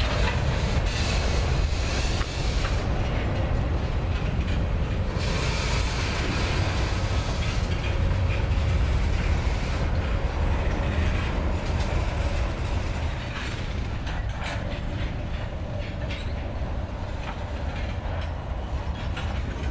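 Freight cars, tank cars and then open hopper cars, rolling past on the rails: a steady rumble of steel wheels with scattered clicks over the rail joints. It eases a little past the halfway point.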